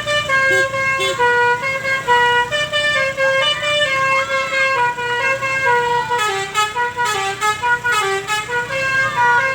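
Bus 'basuri' telolet air horn playing a fast melody of stepped musical notes, one after another, with a few short sliding notes.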